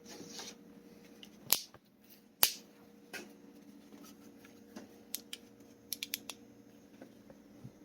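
Sharp clicks and light taps from objects being handled: two loud clicks a second apart early on, then a quick run of smaller clicks about two-thirds of the way through, over a faint steady hum.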